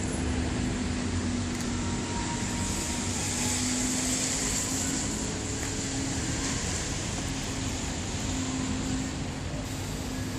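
Steady hum of city street traffic with a low engine drone that swells and fades.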